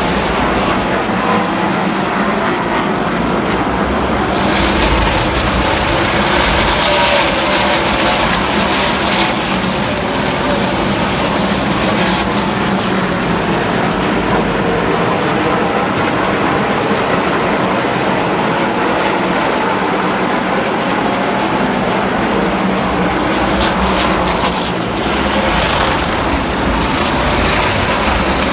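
A pack of NASCAR Camping World Series race trucks running at speed, their V8 engines blending into a loud, steady drone.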